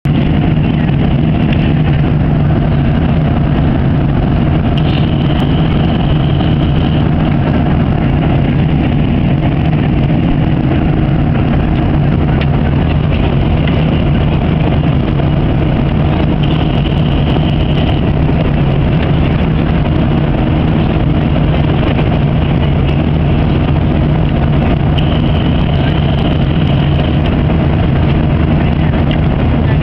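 Steady drone inside an airliner cabin at cruising altitude: jet engine and rushing airflow heard through the fuselage, with a low hum underneath. A faint high whine swells in and out a few times.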